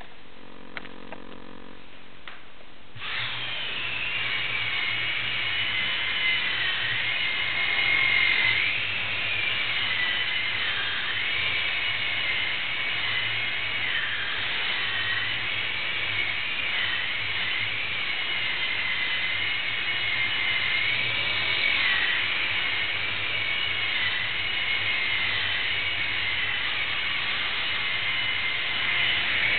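Blade mSR micro RC helicopter's electric motors start about three seconds in, then run in flight with a high whine that wavers up and down in pitch as the throttle changes, over a low steady hum.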